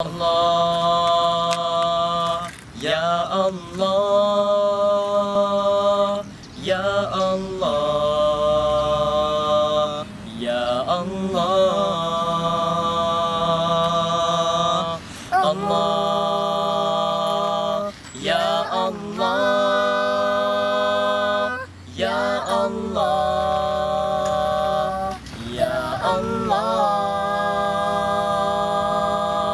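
Boys' voices singing a cappella, with long held notes in phrases broken every few seconds.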